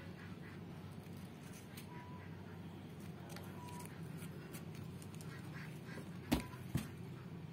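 Newborn kittens giving a few faint, short mews over a steady low hum. Near the end come two sharp knocks about half a second apart, the loudest sounds.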